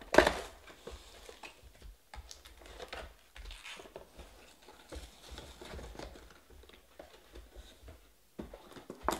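Plastic foil wrappers of 2020 Panini Prizm Draft Picks football hobby packs crinkling and tearing as packs are pulled from the box and ripped open. The loudest rustle comes just after the start, followed by lighter, scattered crinkles.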